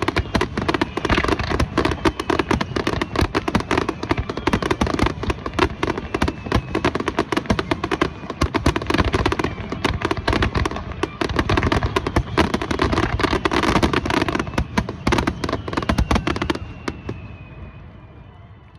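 Fireworks going off in a dense, rapid barrage of bangs and crackling, with a few faint whistles among them. The barrage dies away about sixteen seconds in.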